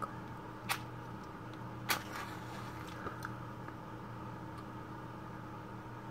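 Wooden match struck on its box: a short scrape about a second in, then a second strike that catches, with a brief hiss as the head flares.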